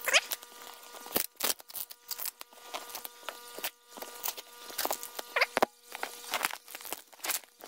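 Blade slicing through packing tape on a cardboard shipping box: a rapid series of short scraping and tearing strokes, several with a quick rising zip.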